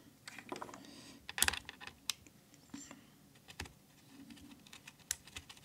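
Blue mechanical keyboard switch being pressed over and over at an irregular pace, giving scattered faint clicks, as hand-cream lube is worked into it.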